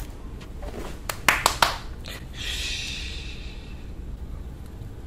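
Three quick, sharp hand claps about a second and a half in, then a long, soft "shhh" shushing hiss.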